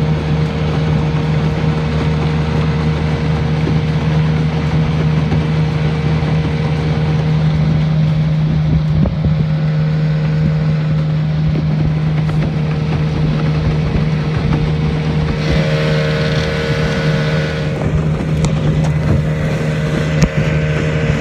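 Outboard motor of a small open boat running at a steady cruising speed, a constant low drone, with wind on the microphone. A second, higher pitched sound joins for a few seconds about two-thirds of the way through.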